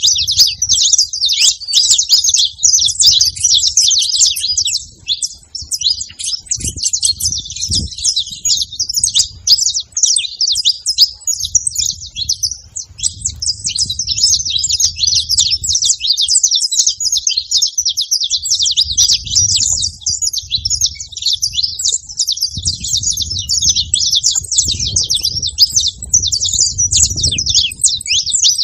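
A flock of saffron finches chirping and singing all at once: a dense, unbroken chatter of many overlapping high chirps.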